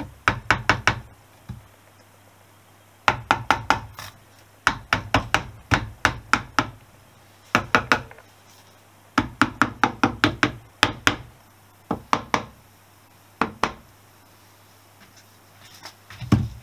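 Soft-faced mallet tapping the aluminium generator side cover of a Honda XL250S engine to seat it on the crankcase. The taps come in quick bursts of about four to six, with short pauses between bursts.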